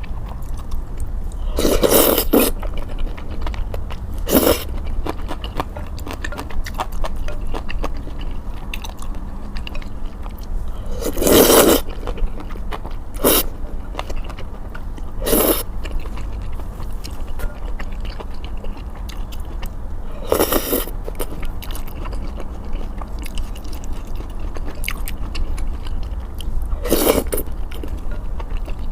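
Close-miked eating of sticky malatang: continuous chewing and mouth sounds, with about seven short, louder eating sounds spread through, each under a second.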